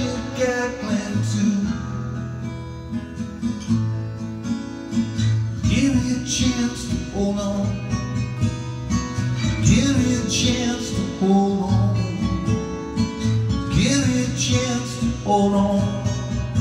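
Acoustic guitar strummed in a steady rhythm, playing through a song's chords.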